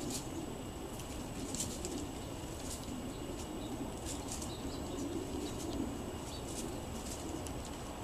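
Sparrows at a seed-strewn picnic table giving short high chips about once a second, over a steady low background rumble.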